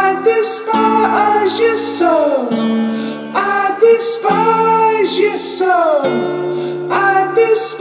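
Background music: a song with guitar and singing, its phrases falling in pitch and repeating every couple of seconds.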